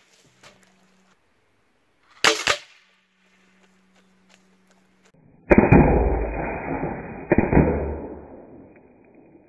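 A pressurized, water-filled 2-liter bottle with a Big Blast target cap is being shot. A short, sharp crack comes about two seconds in. Past the middle comes a loud pop followed by a few seconds of hissing spray as the bottle vents, with a second pop partway through the fading spray.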